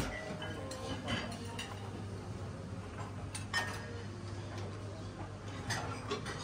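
Scattered light clinks and taps, like dishes and cutlery, over a steady low hum.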